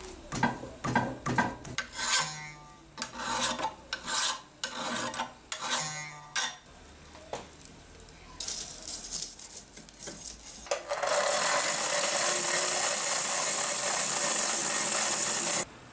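Rasping, scraping strokes of a wooden handle block worked back and forth against a hot steel tang clamped in a vise. After a pause, a steady loud rushing hiss from a charcoal forge burning hard, which cuts off suddenly near the end.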